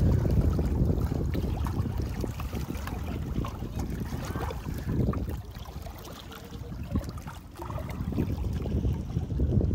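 Wind noise on the microphone, rising and falling in gusts, louder in the first half and easing a little past the middle, over small lake waves lapping against shoreline rocks.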